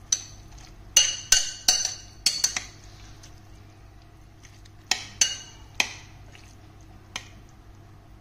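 Metal spoon clinking and scraping against a bowl while stirring a thick mixture: a quick run of about five clinks starting about a second in, three more around five seconds in, and a fainter one near the end.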